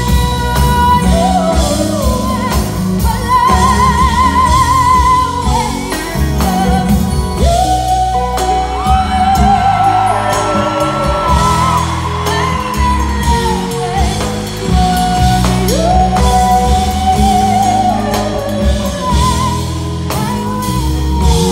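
A young woman's solo voice singing a slow ballad live, holding long notes with a wide vibrato over instrumental accompaniment.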